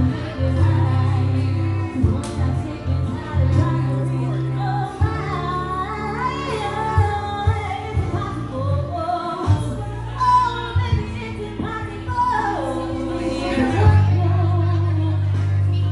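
Loud music with a woman singing a melody over a heavy bass line.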